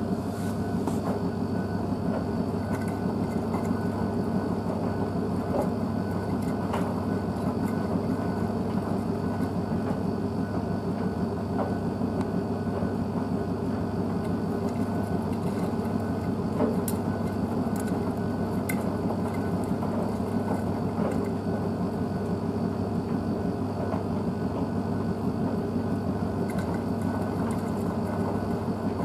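Blomberg WNF9448 front-loading washing machine tumbling a wet load during its wash cycle: a steady motor hum with water and clothes sloshing in the drum and occasional light knocks.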